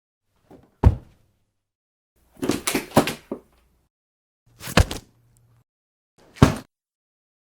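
Body-fall sound effects: a heavy body or sack dropping to the floor with a dull thud, four separate falls with silence between them. The second is a tumble of several quick impacts rather than a single hit.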